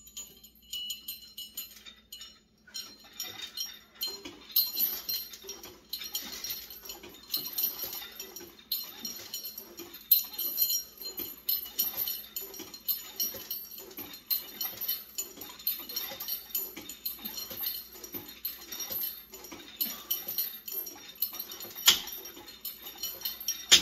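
Home-gym cable machine worked in pulldown reps: the chain and handle rattle and jingle in a quick, steady rhythm, with sharp metal clanks about ten seconds in and again near the end.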